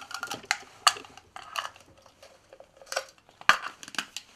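Handling of a fly reel and its line: about half a dozen separate sharp clicks and taps, hard plastic and metal knocking.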